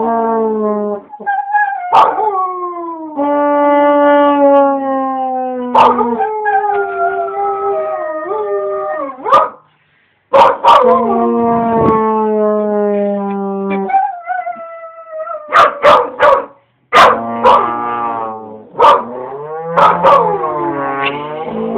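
A young husky/Labrador mix howling along with a trombone: the trombone holds long, steady low notes while the dog's howls slide and waver in pitch above them. Both break off briefly near the middle.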